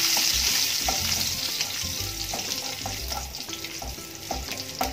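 Curry leaves and whole spices sizzling in hot oil in a nonstick kadai, stirred and scraped with a wooden spatula. The sizzle is loudest at first and slowly dies down.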